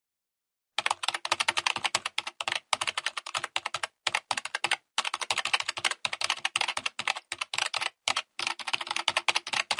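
Fast computer keyboard typing: a rapid run of key clicks in spells of a second or two, broken by brief pauses, starting about a second in.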